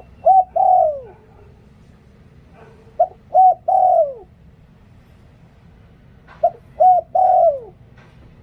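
Spotted dove cooing in the Thai 'liw tan' style, three phrases about three seconds apart. Each phrase is two short coos followed by a longer coo that falls in pitch.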